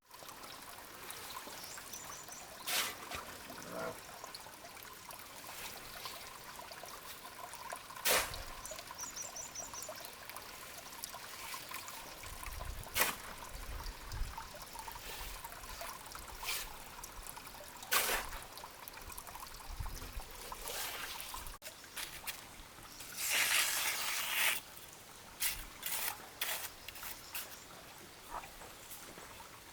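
A faint steady trickle or pour, broken by single sharp knocks every five seconds or so and a longer noisy rustle about twenty-three seconds in.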